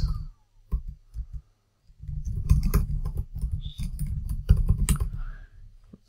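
Typing on a computer keyboard: a few keystrokes, a short pause, then a quick, steady run of keystrokes that stops shortly before the end.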